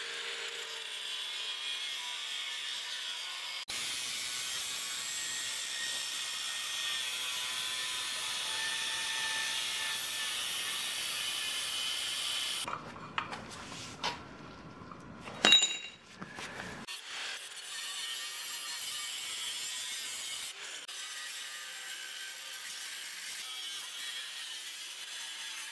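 Cordless angle grinder with a cut-off disc grinding steadily through the aluminium bellhousing of a Nissan CD009 transmission. The grinding breaks off for a few seconds around the middle, where a single sharp, ringing clank is the loudest sound, then resumes.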